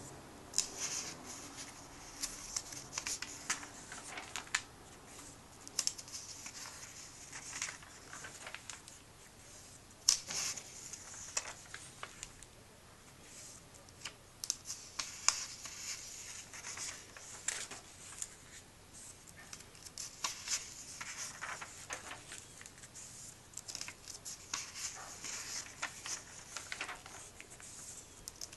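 Comic book pages being turned and smoothed flat by hand: irregular paper rustles and swishes with crisp snaps as each page flips over, the loudest snap about ten seconds in.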